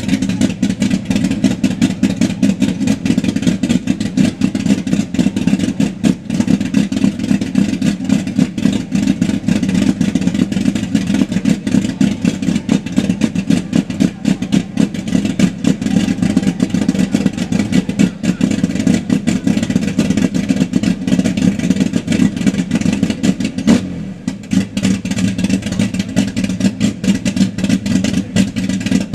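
Chevrolet Opala engine running steadily with a loud, rapidly pulsing exhaust rumble, which the owner finds too loud. The sound drops briefly near the end.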